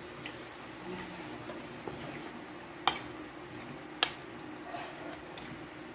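Bean sprouts sizzling in a metal wok as they are stirred with a spatula, the spatula knocking sharply against the wok twice, about three and four seconds in. A faint steady hum runs underneath.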